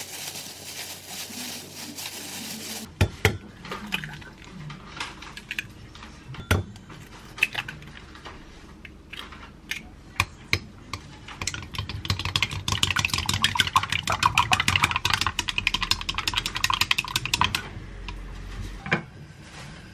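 Wooden chopsticks beating eggs in a glass bowl: a fast, steady run of light clicks against the glass for about five seconds in the second half. Before it, about three seconds of plastic-glove rustling, then scattered sharp taps and knocks of kitchen work, and a single knock near the end.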